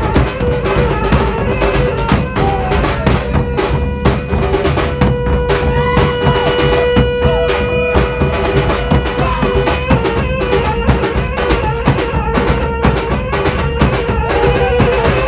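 Traditional Minangkabau music accompanying the galombang dance: fast, steady drumming with a long held wind-instrument note in the middle and short gliding melodic lines above.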